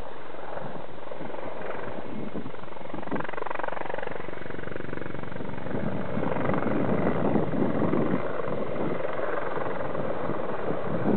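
Mil Mi-24 attack helicopter flying past low, its main rotor and twin turboshaft engines heard as a steady pulsing rotor noise that grows louder from about six seconds in as it banks closer.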